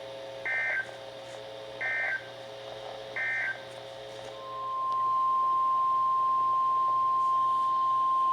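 Three short, raspy Emergency Alert System SAME data bursts, just over a second apart: the end-of-message code that closes a severe thunderstorm warning. About four seconds in, a steady single-pitch alert tone fades in and holds. It matches the 1050 Hz NOAA Weather Radio warning alarm tone that opens the next warning.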